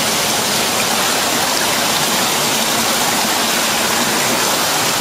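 Canyon stream water rushing and splashing through a narrow rock channel: a steady, unbroken rush.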